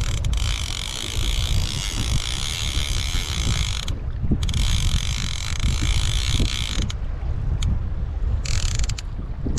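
Fishing reel's drag clicking as a hooked fish pulls line off in runs; it stops about four seconds in, runs again, stops near seven seconds, then gives a short burst near the end. Wind rumbles on the microphone underneath.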